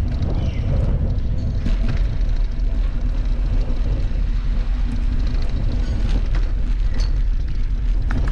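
A bicycle rolling along, picked up by a camera on the bike: a steady low rumble of tyres and wind on the microphone, with scattered rattling clicks as the wheels run from asphalt onto cobblestones.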